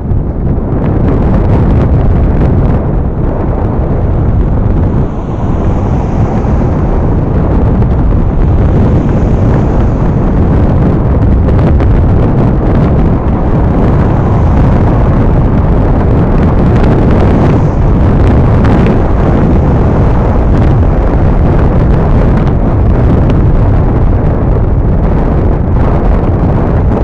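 Wind buffeting the microphone of a bicycle-mounted camera while riding at speed: a loud, steady low rumble.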